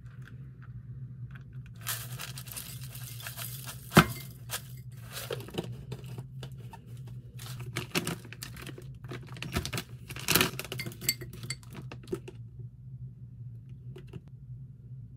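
Granola poured from a glass jar into a glass bowl, a dry rattle with a sharp clink of glass about four seconds in. Then a plastic bag of frozen blueberries crinkles as the berries drop into the bowl, over a low steady hum.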